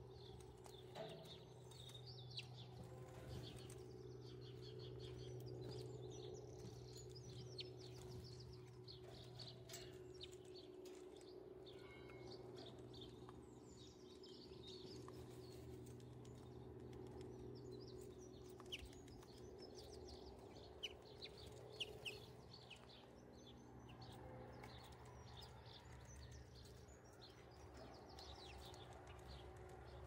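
Faint chirping and twittering of small garden birds throughout, with a few sharp taps of a great tit pecking peanuts through a wire-mesh feeder, over a low steady hum.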